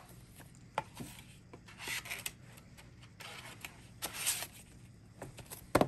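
Plastic DVD case and cardboard slipcover being handled: scattered light taps and clicks with short stretches of cardboard and plastic rubbing and sliding against each other, and a quick pair of sharper clicks near the end.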